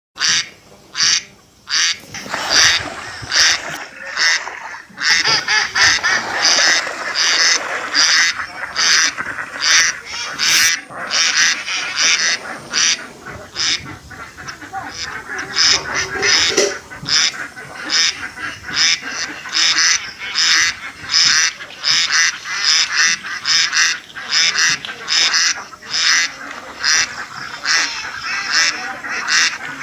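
Domestic ducks quacking continuously, short calls coming several times a second and overlapping one another.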